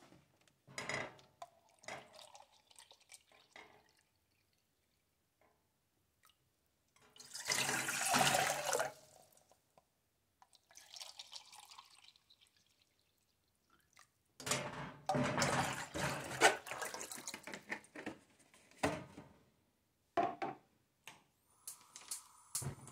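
Water poured and splashing into a glass measuring cup and a metal saucepan, in several separate pours with short gaps, the longest about a third of the way in and from about two-thirds through.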